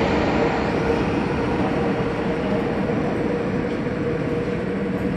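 MTR Kwun Tong Line metro train running away from the platform into the tunnel. Its rumble slowly fades, with a steady tone running through it.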